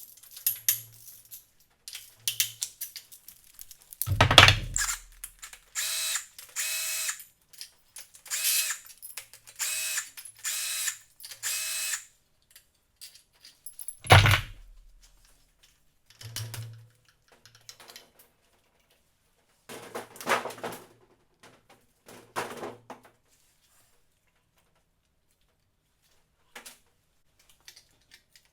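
A cordless power driver spins bolts out of an engine in five short whirring bursts, each under a second long. A heavy knock comes before them and another after, with smaller metal clatter later on.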